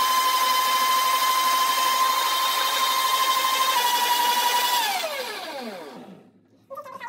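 Sujata electric mixer grinder blending milk juice, its motor running with a steady high whine. About five seconds in it is switched off and the whine falls in pitch as the motor spins down.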